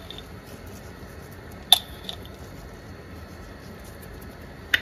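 Quiet kitchen background with a low steady hiss, broken by one sharp click a little under two seconds in and a few faint ticks, as salt is sprinkled by hand into a pot of béchamel sauce.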